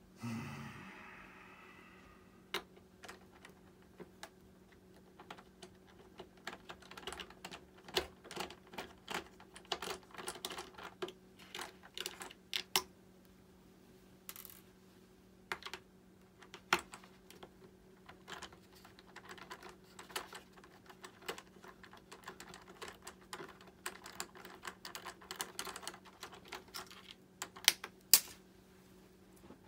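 Small hand-work clicks and taps, irregular and many, of plastic and metal parts and small tools being handled while fitting RC jet retract landing gear, over a steady low hum. A short whir at the very start dies away over about two seconds.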